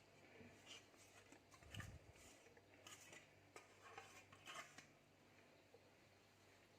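Near silence, with faint rustles and light clicks from handling food and kitchenware, about half a dozen in the first five seconds.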